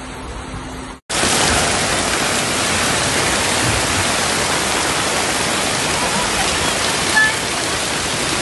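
A steady, loud rush of floodwater surging down a street, with heavy rain falling. It comes in abruptly about a second in, after a brief drop-out and a quieter rushing noise.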